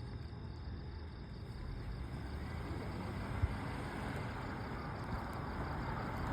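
Steady low vehicle rumble that builds slightly, with one short knock about three and a half seconds in.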